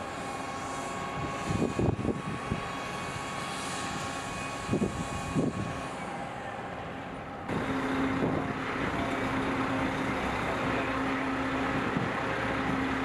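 Heavy military truck diesel engines running, with a few short knocks and clanks in the first half. About halfway through the sound changes abruptly to a louder, steady engine drone with a held hum.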